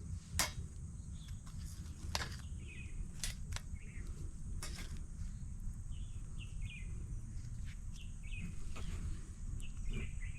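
Forest ambience: short bird chirps repeating over a steady low rumble, with a few sharp clicks in the first half.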